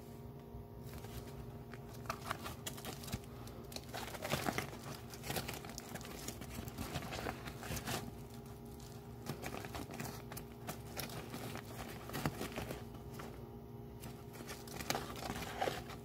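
Plastic bonnet of a vintage GE HD-21 bonnet hair dryer crinkling and rustling as it is handled and unfolded, in irregular crackles.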